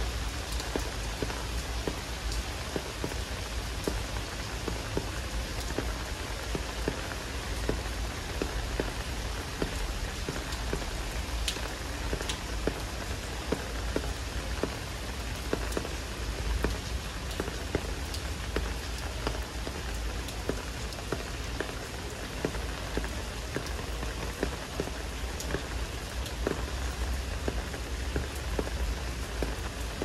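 Heavy rain falling steadily: a dense, even hiss with many separate drop taps close by and a low rumble underneath.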